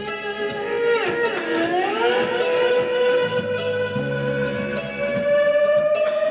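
Music with guitar: one long held note dips in pitch about a second in and then slowly rises, over intermittent low bass notes.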